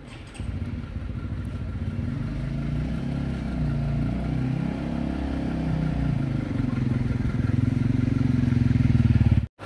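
Motorbike engine running close by, its pitch shifting up and down as it grows louder, then cut off suddenly near the end.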